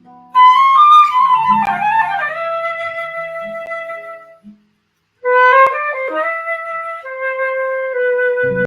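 A flute playing a slow melody: a quick run of notes settling onto a long held note, a brief pause about halfway through, then another phrase of held notes, with a low accompaniment coming in near the end.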